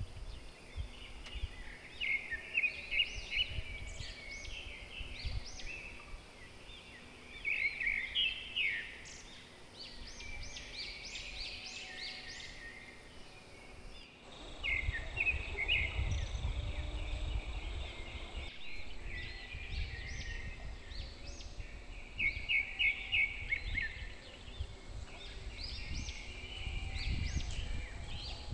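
Birds calling repeatedly in quick high chirping series, with a low rumble underneath that grows stronger about halfway through and again near the end.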